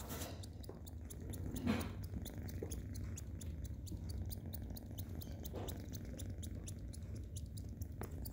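Tabby kitten suckling and nibbling on a bare forearm: a long run of small, quick wet clicks, about three or four a second, over a steady low rumble.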